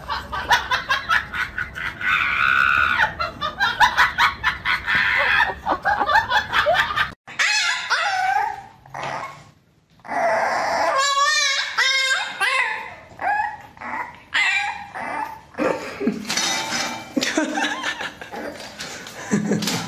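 Laughter, then a French bulldog puppy's high whining cries that bend up and down in pitch.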